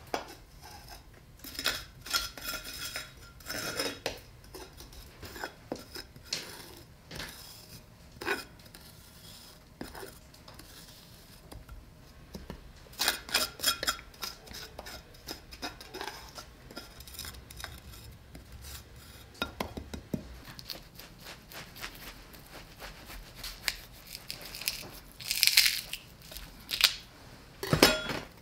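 A knife blade scraping a crust of coarse salt off a slab of beef ribs on a metal table, in irregular scrapes and clicks, with runs of quick strokes about two seconds in, near the middle and near the end.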